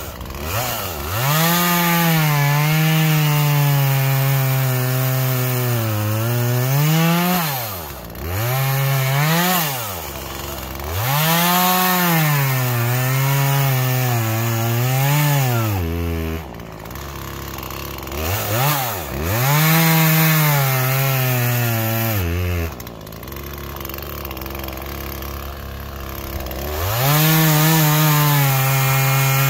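Gas chainsaw bucking a fallen ash log into blocks. The engine runs at full throttle, its pitch sagging as the chain bites into the wood and rising again as it frees, over several cuts. It drops to a lower, steady idle twice between cuts.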